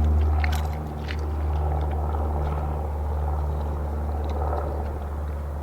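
A Labrador chewing a large dill pickle, with a few wet crunches in the first second or so, over a steady low hum.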